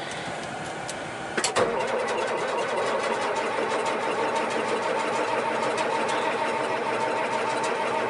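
John Deere tractor's diesel engine running, heard from inside the cab while the tractor is driven. About a second and a half in there is a sharp click, and after it the engine runs louder and steady.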